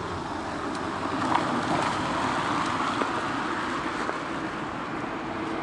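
A car driving along the street: a steady rush of engine and tyre noise that swells slightly about two seconds in.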